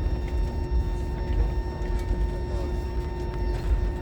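Airliner cabin noise after landing: a steady low rumble with a constant hum. Faint passenger chatter sits in the background.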